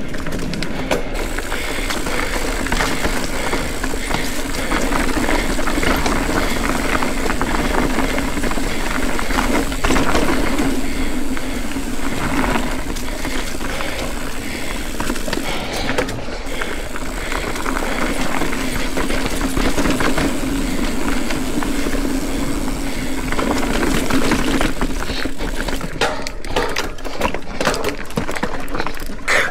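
Ibis Ripley full-suspension mountain bike riding a dirt trail: tyres and frame rattling over the ground in a steady rush of noise, with sharper knocks over rough ground near the end.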